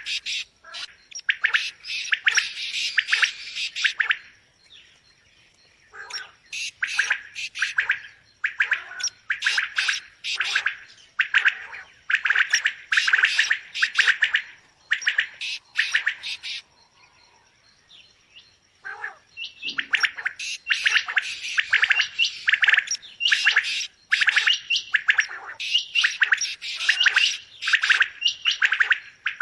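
Quail calling: fast runs of sharp chirping notes in bouts several seconds long, with two short pauses.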